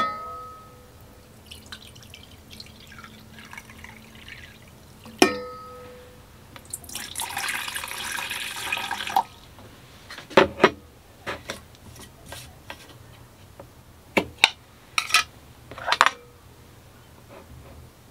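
Water poured from a glass jar into a stainless steel mixing bowl for about two seconds. Before it come two sharp clinks that ring briefly, and after it a string of sharp knocks and taps.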